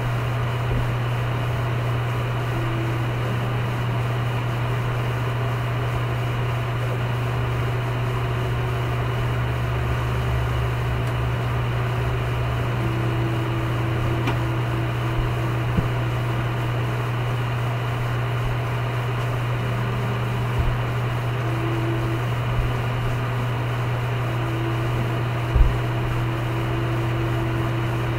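A steady low hum and hiss, with a few soft thumps of feet stepping on a carpeted floor during a karate kata. The loudest thump comes near the end.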